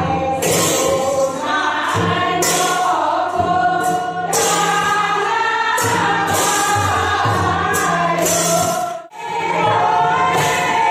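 A group of voices, mostly women's, singing a Radha-Krishna devotional song together with a rhythmic accompaniment and sharp clap-like strokes every second or two. The sound breaks off for a moment about nine seconds in.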